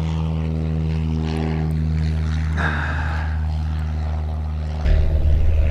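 A steady engine drone holding one pitch, which becomes louder and rougher about five seconds in.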